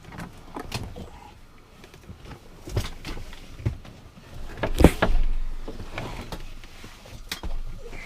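Clicks, knocks and rattles of a Pilatus PC-12's cabin door and fittings being worked by hand, with one loud thump about five seconds in followed by a short low rumble.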